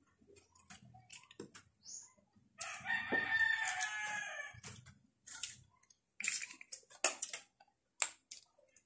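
A rooster crowing once, about two and a half seconds in, lasting about two seconds. Around it come soft clicks and short smacking and sucking sounds of people eating snails.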